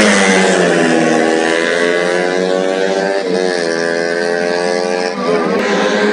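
Racing motorcycle engine at high revs, its pitch sagging slowly, with a break and change of pitch about three seconds in and again about five seconds in.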